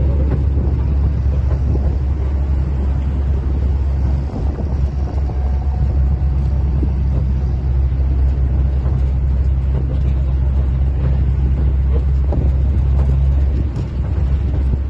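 Steady engine and road rumble of a passenger vehicle heard from on board, with wind buffeting the microphone; the drone eases briefly about four seconds in and again near the end.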